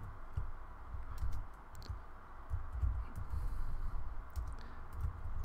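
A few scattered keystrokes on a computer keyboard, light separate clicks a second or so apart over a low background rumble.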